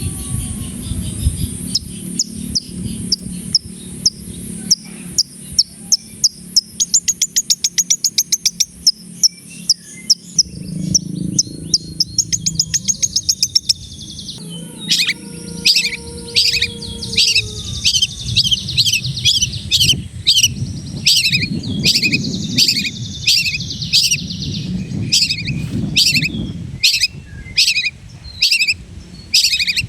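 Long-tailed shrike (cendet) singing a busy song of the kind filled with mimicked phrases: rapid trills of quick repeated notes in the first half, then a string of loud, sharp notes at about one to two a second. A low rumble runs underneath.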